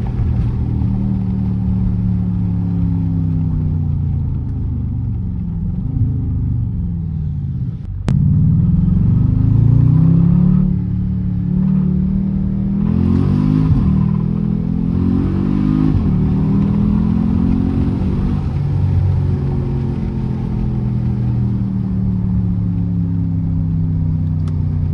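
Jeep Grand Cherokee SRT's 6.4-litre HEMI V8, breathing through a K&N cold air intake, running under throttle with its pitch repeatedly rising and falling. It is louder for a couple of seconds about eight seconds in.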